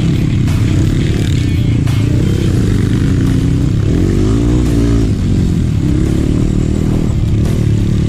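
Trail motorcycle engine running under load, its pitch rising and falling as it revs up and back down a little past the middle.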